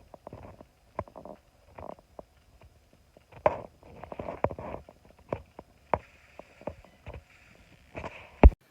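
Handling noises: irregular clicks, knocks and short scuffs, with one sharp knock near the end after which the sound stops suddenly.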